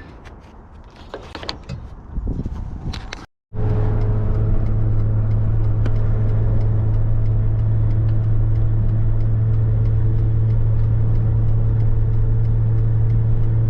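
A few scattered knocks and clicks, then, after a sudden cut, a pickup truck driving, heard from inside the cab as a loud, steady low drone.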